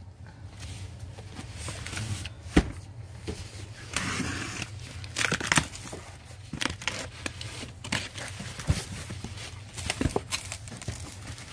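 Cardboard carton being cut open with a utility knife and its flaps pulled open: tape slitting, cardboard scraping and rustling, with a few sharp knocks.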